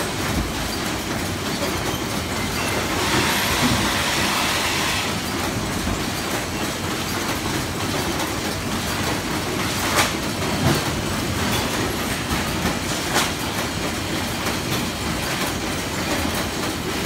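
Automatic box-packing (cartoning) machine and its conveyors running: a steady mechanical clatter of many small knocks. A hiss comes in about three seconds in and lasts about two seconds, and there are sharp clicks about ten and thirteen seconds in.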